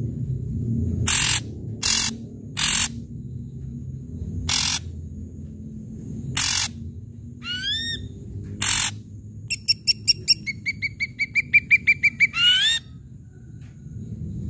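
Ashy drongo singing: harsh, rasping calls spaced a second or two apart, then a pair of rising whistles about eight seconds in. Near the end comes a fast chattering run of about six notes a second, closed by another rising whistle.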